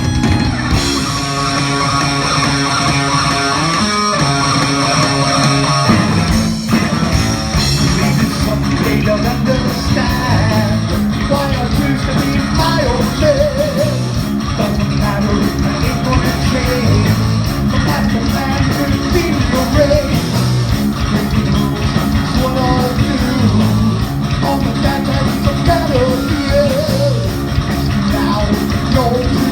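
Heavy rock music played by a full band: electric guitar and drums, with a singing voice coming in about eight seconds in.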